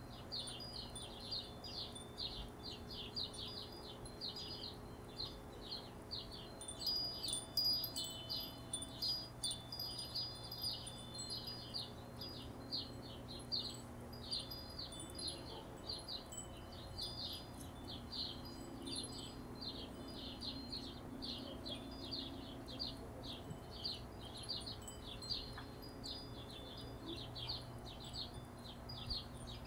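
Hummingbirds chattering: a dense, unbroken stream of rapid, high, short chips. A faint low steady hum runs underneath.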